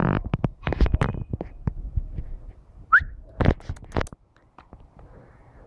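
A run of sharp knocks and scuffs, with one short rising whistle about three seconds in; the knocks thin out and stop after about four seconds.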